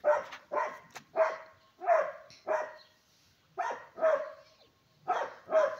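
A dog barking repeatedly, about two barks a second, with a short pause near the middle.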